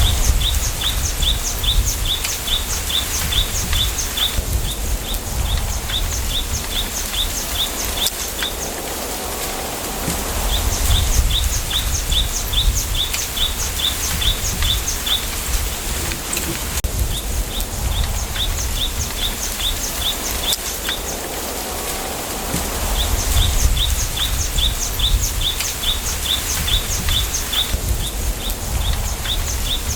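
Wind through a bamboo grove: a steady rustle of leaves, with gusts that swell into a low rumble on the microphone now and then. Over it a small bird repeats a rapid trill of high, evenly spaced chirps, each run lasting a few seconds and coming back every five or six seconds.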